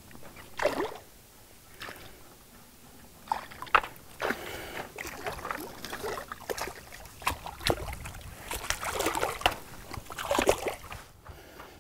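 A hooked largemouth bass thrashing at the surface of the water during the fight, giving irregular splashes and sloshes that come in a quick, uneven series.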